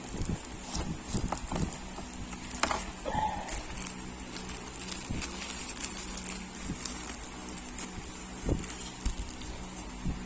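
Cardboard box and packaging being handled as a flashlight is taken out: scattered light taps, clicks and rustling at irregular intervals, over a faint steady hum.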